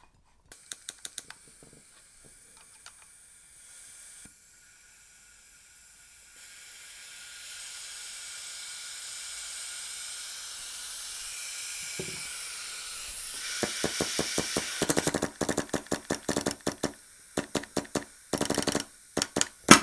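Compressed air hissing from the low-pressure regulator (LPR) of a System X NME paintball marker once it is gassed up, growing louder over several seconds: a leak at the LPR's O-ring, which has crumbled. In the last few seconds, a rapid run of sharp clicks and knocks.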